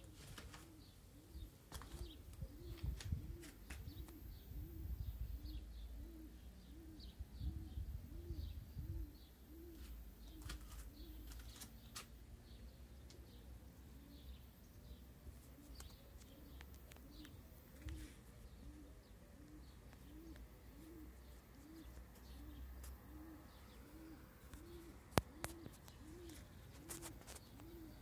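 A dove cooing over and over, a faint low coo repeating at an even pace, with low rumble and clicks of the phone being handled in the first part and one sharp click near the end.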